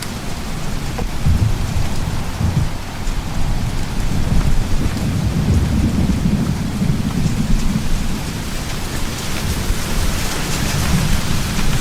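Thunderstorm: steady heavy rain hissing, with a low rolling thunder rumble that swells in the middle and eases off toward the end.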